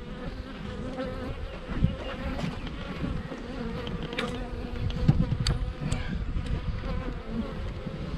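Honey bees buzzing in large numbers around an open hive: a steady hum, with a few light knocks and clicks in the middle.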